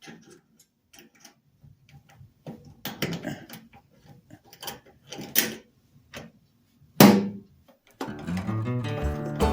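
Scattered light clicks and taps from handling small hardware, with one loud knock about seven seconds in. Acoustic guitar music starts near the end.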